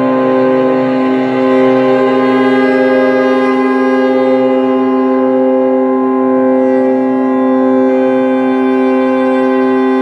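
Drone music from a bowed cello and an electronic keyboard played through effects pedals: one loud, steady held tone with many overtones that hardly changes.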